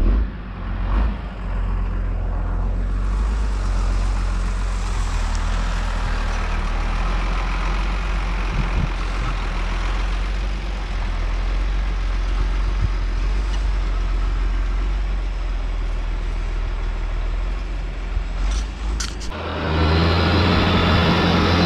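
Diesel tractor engines running steadily under load, pulling mounted reversible ploughs through heavy clay soil. About nineteen seconds in, a louder, nearer engine takes over as the MTZ Belarus 1221.3 comes close.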